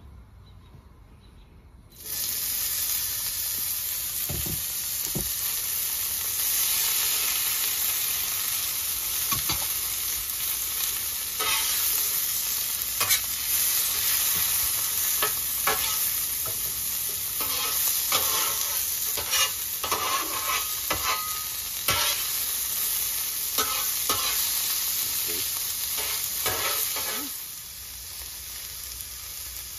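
Diced vegetables sizzling in oil on the steel plate of a Pit Boss portable flat-top griddle, the sizzle starting suddenly about two seconds in. A metal spatula scrapes and taps on the griddle again and again as the vegetables are stirred, and the sizzle eases a little near the end.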